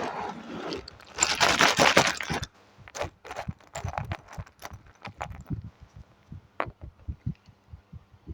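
Plastic Lego pieces being handled: a loud rustling clatter for about two seconds, then a string of irregular light clicks and taps.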